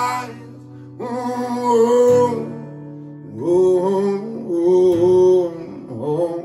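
A man singing long, drawn-out notes over an acoustic guitar. A loud held note dies away at the start, then two sung phrases follow, the second about three seconds long.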